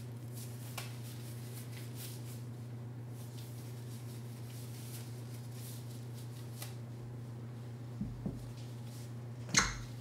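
Light handling sounds over a steady low hum: soft rustles and faint ticks, two light taps about eight seconds in, then a sharper, louder knock near the end.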